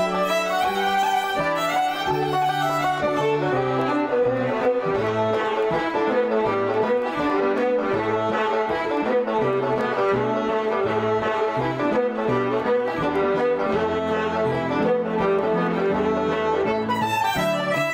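A small Irish traditional music ensemble playing a tune together: two fiddles lead, with concertina, banjo and piano chords and bass underneath.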